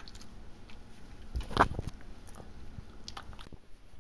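Small dog chewing a piece of bread: a few faint, scattered crunches and mouth clicks, the clearest about a second and a half in.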